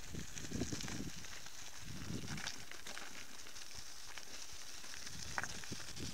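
Bicycle tyres rolling over a gravelly dirt track: a steady crunchy hiss with scattered small clicks and crackles.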